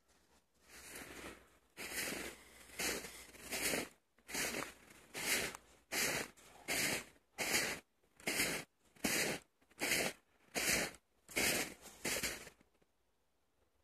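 Footsteps crunching in fresh snow at a steady walking pace, about fifteen steps, stopping near the end.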